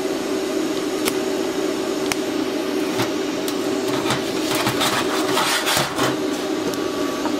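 TIG welder buzzing steadily with crackles and clicks as pie-cut exhaust pipe sections are tack welded together.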